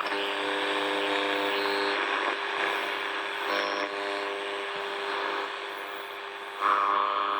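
Sanyo TPM2140's small radio speaker giving out AM-band static with a steady hum of several tones: no station is received on AM. A louder rush of hiss comes in near the end.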